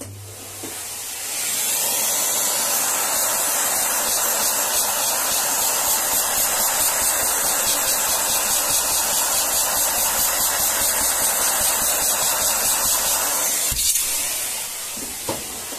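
Vacuum cleaner running with a narrow hose nozzle, giving a loud steady airy hiss. It builds up over the first second or so, and near the end a knock is followed by the sound winding down.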